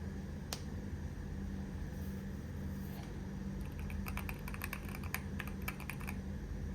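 Keystrokes on a Keychron Q1 HE keyboard: a single key click, then a quick run of about twenty key presses lasting about two and a half seconds, over a steady low hum.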